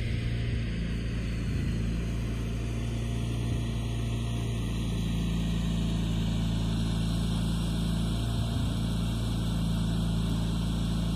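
A motor running steadily with an even low hum that neither rises nor falls.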